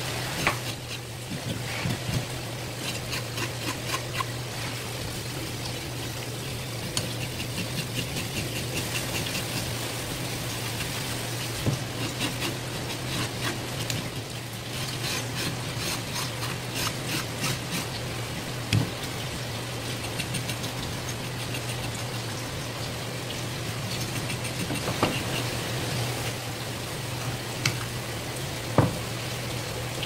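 Knife scraping scales off a rock bream's skin on a plastic cutting board, in quick runs of rasping strokes several a second, with a few sharper knocks. A steady low hum runs underneath.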